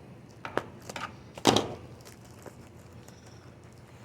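A few short crackling, crinkling handling noises from a cardboard trading-card blaster box being picked and pried at with the fingertips, the loudest a sharp crackle about a second and a half in.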